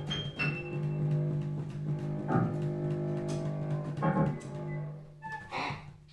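Free-improvised music from a keyboard, bass guitar and cello trio: a steady low drone with many overtones, broken by a few short, noisy struck accents. It thins out to a few high tones near the end.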